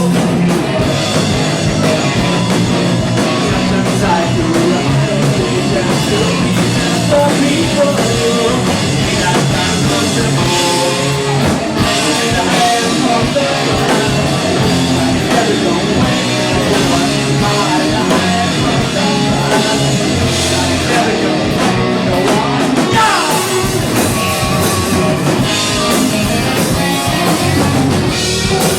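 A rock band playing live with electric guitar and drum kit, loud and continuous.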